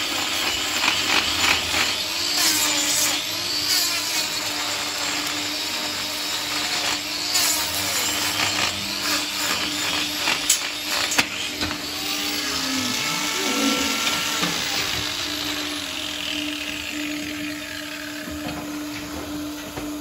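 Corded angle grinder running steadily as it grinds horn off a cow's hoof during hoof trimming, with a steady motor hum under the grinding noise. The grinding thins out near the end.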